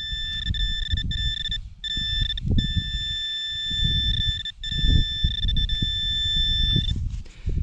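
A metal detector holding a steady high-pitched target tone, broken by a few short gaps and cutting off near the end, as it sits over a buried metal target. Under it come irregular low thumps and rustling from digging out the target.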